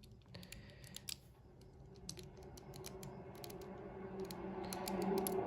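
Small, irregular plastic-and-metal clicks of a Master Lock 875D combination padlock's dials being turned notch by notch while the shackle is held under tension, as each wheel is felt for its set number. Under the clicks a low steady hum grows louder toward the end.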